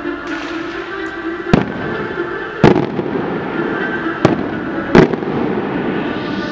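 Fireworks going off: four loud, sharp single bangs spaced irregularly about a second apart.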